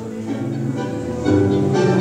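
Two acoustic guitars playing together live, plucked notes and chords, growing louder a little past halfway.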